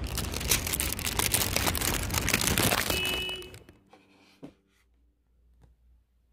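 Thin plastic carrier bag being handled, rustling and crinkling with many sharp crackles. The rustling stops after about three and a half seconds, leaving quiet with a couple of faint taps.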